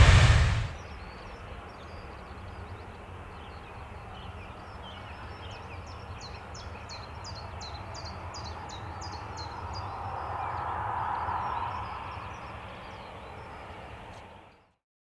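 Loud jet noise cuts off within the first second. Small birds chirping follow over a low, steady outdoor rumble, with a run of quick repeated chirps in the middle and a faint swell of distant engine noise about ten seconds in. All sound cuts out just before the end.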